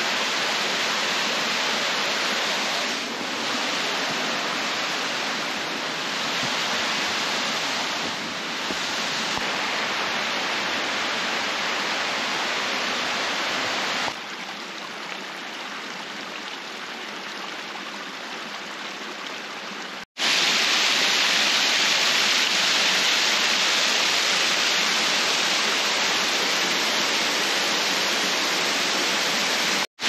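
Rushing water of a creek and small cascading waterfall, a steady hiss. It drops lower a little before the middle, then comes back louder a few seconds later, close beside the falling water.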